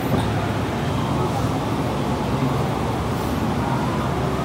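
Indistinct murmur of a standing congregation over a steady low background hum; no instrument is playing.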